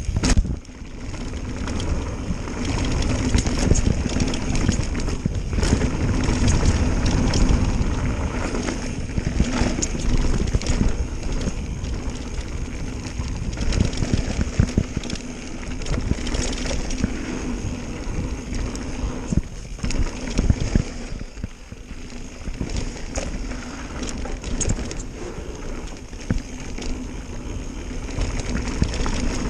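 Mountain bike ridden fast down a dirt trail: tyres rolling over ground and rocks, with frequent knocks and rattles from the bike and a steady rush of wind on the microphone.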